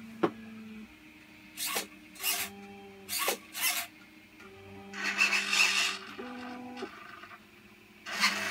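Servo motors in a 3D-printed R2-D2 replica humming as they swing its utility arm out of the body. Several short rasping bursts and one longer rasp about halfway through cut across a steady low hum.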